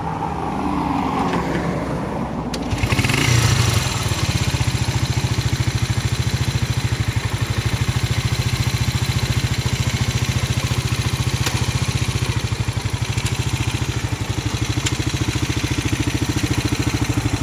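Italika FT125's 125 cc single-cylinder four-stroke engine kick-started, the electric start not working. It catches about three seconds in, revs briefly, then idles steadily.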